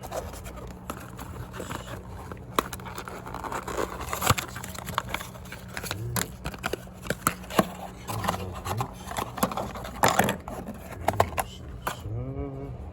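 Scattered sharp clicks and light scrapes of a new TPMS sensor and its small parts being handled and fitted together, over a steady low hum.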